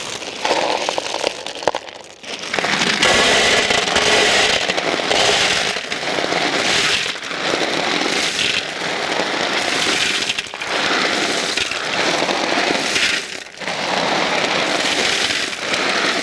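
Masses of small black clam shells clattering and rattling as they are poured and pushed off a metal platter into a large metal pot, in several long pours with short pauses between.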